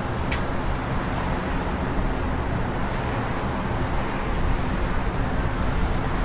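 City street traffic: a steady noise of passing cars, with one short click about a third of a second in.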